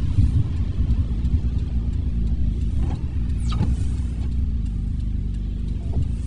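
Car driving on a rainy road: a steady low rumble of engine and tyre noise, with one brief swish about halfway through.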